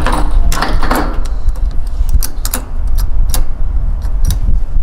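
Scattered sharp metallic clicks and clinks at a semi truck's fuel tank during diesel fuelling, over a steady low rumble.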